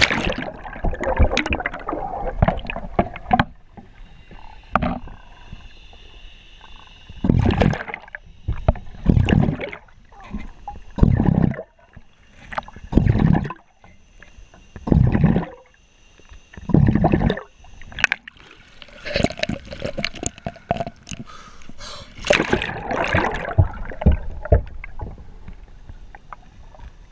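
Muffled underwater sloshing and bubbling around an upturned kayak, heard through a submerged action camera, with surges of churning water about every two seconds and a longer spell of churning near the end.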